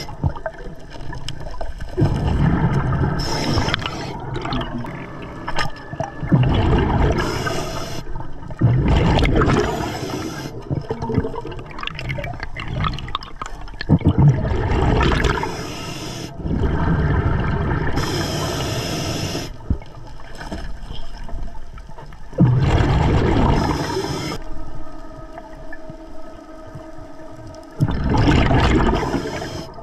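Scuba diver breathing through an Atomic regulator underwater: a hissing inhale alternating every few seconds with a loud gurgling rush of exhaled bubbles, in a steady repeating cycle.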